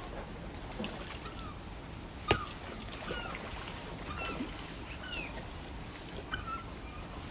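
Steady rush of the river at the falls, with short chirping bird calls scattered through and one sharp crack about two seconds in.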